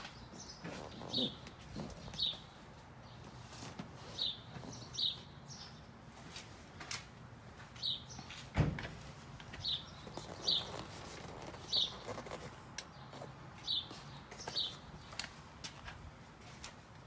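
A bird chirping over and over, short high chirps about once a second, with one sharp knock about halfway through.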